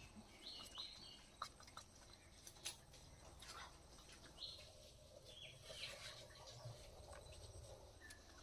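Near silence: faint clicks and scraping of a ripe mango being peeled against a bonti, the fixed blade of a Bengali floor cutter. A few short high chirps come about half a second in and again around the middle.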